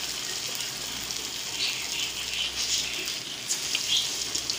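Vadai (lentil-batter fritters) deep-frying in hot oil in a pan: a steady sizzle with scattered crackles.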